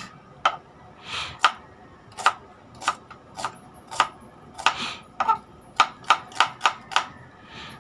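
Kitchen knife chopping an onion into small pieces on a wooden cutting board: single knocks about a second apart, then a quicker run of about four chops a second after the midpoint.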